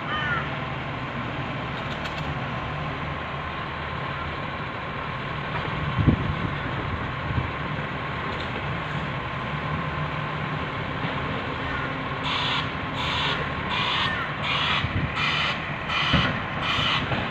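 Garbage truck's engine running steadily, with a loud thump about six seconds in and another near the end. From about twelve seconds in, a reversing alarm pulses about twice a second. A crow caws at the very start.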